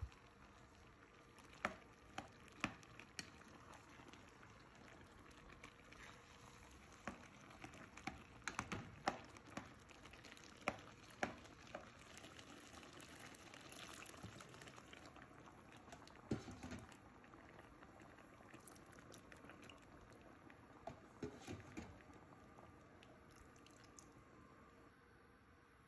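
Faint bubbling of a pot of unripe plantain pottage simmering in an aluminium pot, with scattered sharp pops and clicks throughout. Near the end, water is poured into the pot from a plastic jug.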